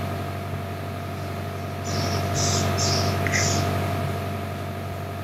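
Steady background hum and hiss, with a few short, soft hissing sounds about two to three and a half seconds in.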